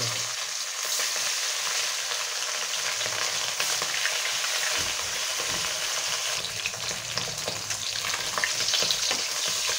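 Rohu fish tail pieces sizzling steadily as they fry in hot mustard oil in an aluminium kadai. A spatula moves among the pieces near the end, with a few light taps against the pan.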